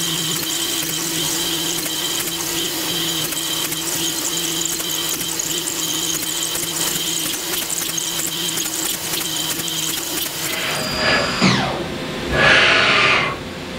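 Bridgeport Torq-Cut 22 CNC machining centre milling with an end mill, a steady whine from the spindle and the cut. About eleven seconds in the cut ends and the spindle winds down with a falling whine. A short, loud burst of hissing noise follows as the machine goes into a tool change.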